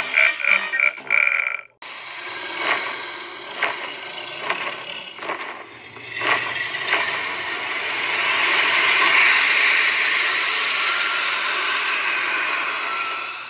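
Animatronic dragon Halloween prop running: a rough mechanical whirring from its motors with scattered clicks, rising to a loud hiss about nine seconds in as it puffs out fog. Before that, the end of a clown prop's music-and-voice soundtrack plays and cuts off about two seconds in.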